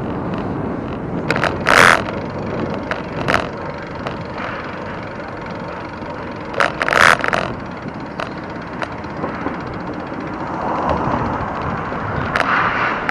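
Bicycle riding noise: a steady rumble with several sharp rattling clacks, the loudest about two seconds in and again about seven seconds in.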